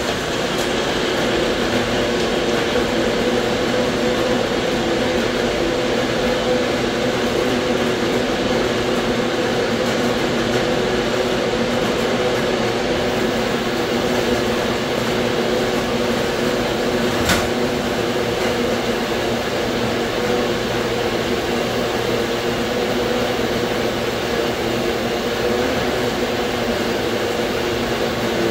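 Bullet-style personal blender running steadily at full speed, blending frozen apple pieces and other ingredients into a smoothie. One sharp click about 17 seconds in.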